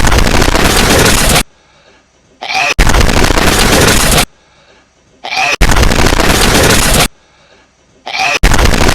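A hedgehog's sneeze, looped and played back loud and distorted: a short rising sniff, then a harsh burst of noise about a second and a half long. It repeats about every three seconds, three times, and a fourth starts near the end.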